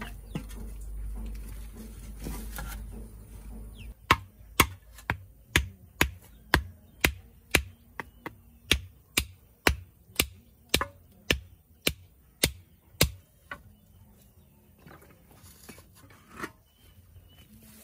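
A steady series of sharp knocks, about two a second and some eighteen in all, starting about four seconds in and stopping about nine seconds later.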